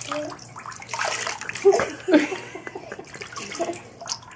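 Water poured from a small plastic cup splashing into a shallow paddling pool, with water sloshing around.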